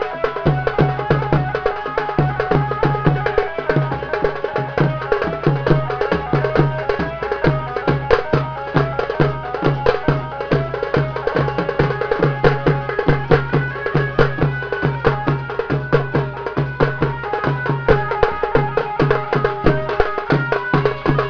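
Live folk dance music: large drums beating a fast, steady rhythm, with a melody line running above it.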